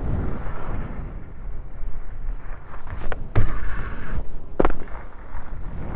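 Skis sliding and scraping over snow with a steady rumble, and a few sharp knocks or clicks a little after three and around four and a half seconds in.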